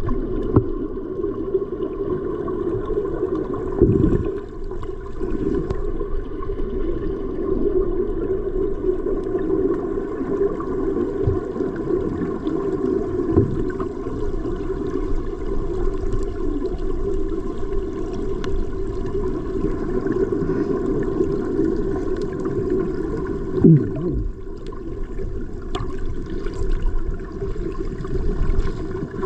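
Water sloshing and gurgling steadily, with a couple of brief knocks, once about four seconds in and once near the end.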